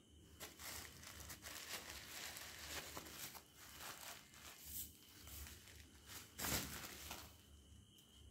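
Bubble wrap rustling and crinkling as it is handled and pulled open by hand, with a louder crackle about six and a half seconds in, then quieter near the end.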